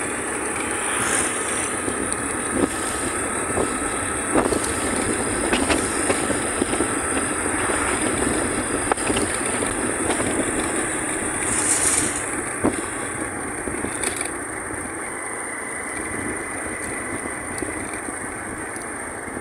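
A moving vehicle heard from on board: steady engine and road noise, with occasional small clicks and knocks.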